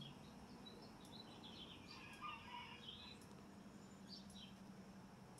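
Near silence: faint background with a few short, high bird chirps.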